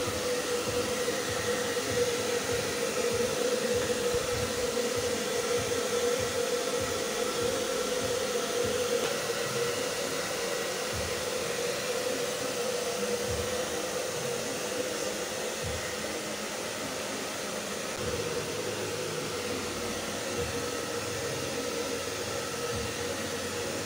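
Handheld electric hair dryer running steadily, blowing on a dog's coat, with a steady hum under the rush of air.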